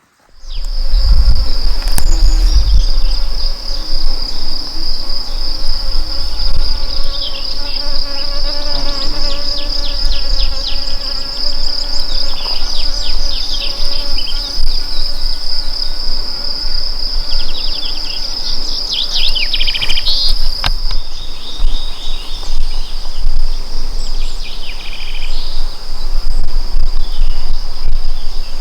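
Insects chirring, a continuous high-pitched buzz held steady, with short high chirps breaking in over it now and then.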